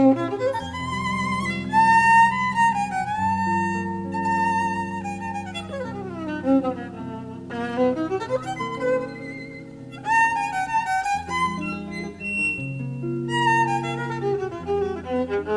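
Jazz violin playing a melody with vibrato, over sustained acoustic guitar chords and double bass. About five seconds in, the violin slides a long way down in pitch and then climbs back up. Live performance heard from a cassette tape recording.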